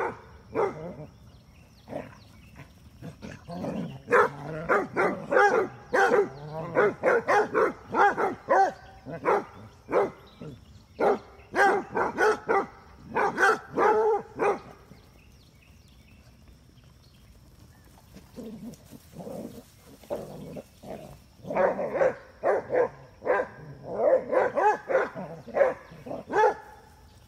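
Basset hounds barking in quick, excited bursts while they play-fight and chase, several barks a second. There are two long bouts of barking with a quieter stretch between them.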